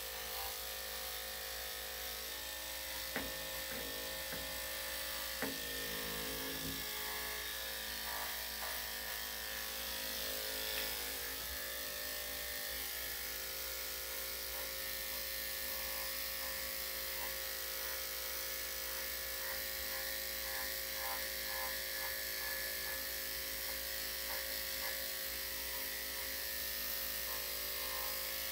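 Corded electric dog-grooming clippers running steadily, a constant motor buzz as the blade is worked through the fur of a small dog's rear and inner hind legs, with a couple of light clicks a few seconds in.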